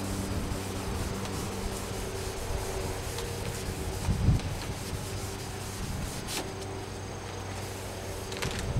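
Hand wet sanding of a painted car body with sandpaper on a sanding block: steady back-and-forth rubbing strokes of wet paper on the paint, with a louder stroke about four seconds in.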